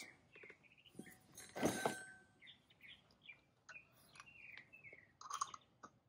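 Faint handling noises from a brass nitrogen regulator being fitted to a cylinder valve: light clicks and a brief louder knock about two seconds in. A bird chirps a run of short falling notes in the background.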